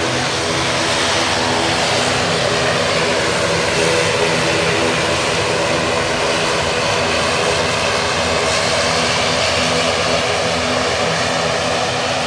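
ATR twin-turboprop airliner's engines and propellers running as it rolls out along the runway after landing: a steady, loud drone with several steady tones over a broad rush of noise.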